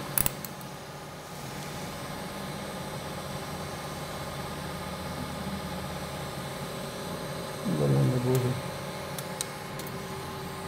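Steady hum of operating-theatre machinery with several constant tones in it. There is a sharp click right at the start and a brief voice about eight seconds in.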